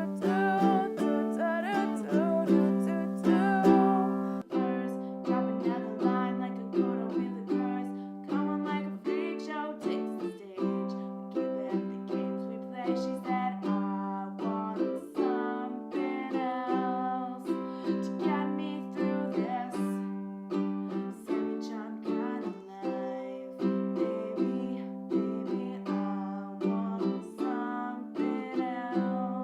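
Music on a plucked string instrument in a small room: a run of picked notes, each ringing and fading, over steady held lower notes. A faint low hum under it stops about four seconds in.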